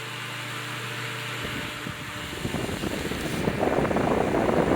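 Small Holmes Blizzard desk fan running with a steady motor hum. After about a second and a half, a rough, fluttering rush of air builds up and grows louder.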